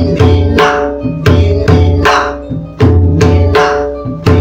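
Pakhawaj playing the 'dhin dhin na' phrase of the bhajani theka, repeated about three times: sharp strokes in groups of three, about every one and a half seconds, over a deep ringing bass.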